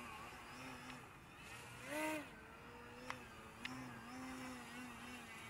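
Electric motor and propeller of an E-flite Eratix 3D flat-foam RC aerobatic plane hanging nose-up in a hover, its whine going up and down with throttle, with a loud brief burst of power about two seconds in. Two short sharp clicks follow a second later.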